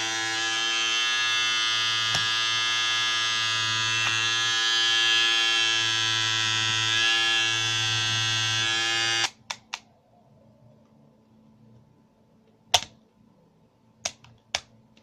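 Kemei KM-680A electric grooming kit's shaver motor running with a steady, even-pitched buzz, switched off suddenly about nine seconds in. A few sharp clicks follow.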